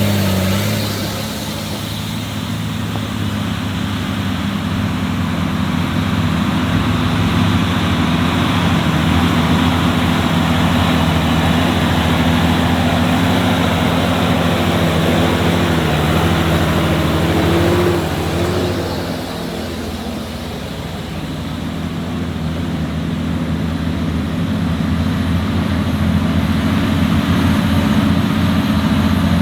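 Off-road 4x4's engine running steadily over a constant rushing noise, easing off briefly about two seconds in and again a little before halfway through.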